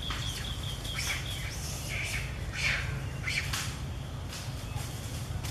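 Outdoor animal calls: a rapid, high pulsing trill that stops about a second in, then a few short, high-pitched chirps or squeaks, over a steady low rumble.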